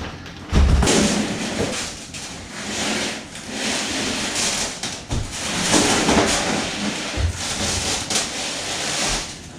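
Rustling and scraping of a boxed hob's packaging being handled, with a few dull thumps about half a second, five seconds and seven seconds in.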